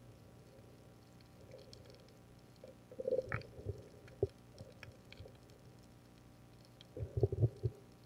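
Underwater sound around the camera: low gurgling water movement about three seconds in and again near the end, over faint scattered crackling clicks.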